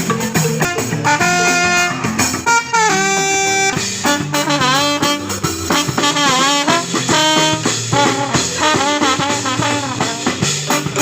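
Music with a lead melody of held and bending notes over bass and drums, jazzy and brass-like.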